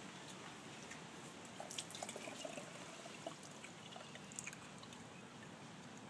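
Coconut water trickling and dripping faintly from a freshly opened green coconut through a plastic strainer into a glass, with a few small clicks.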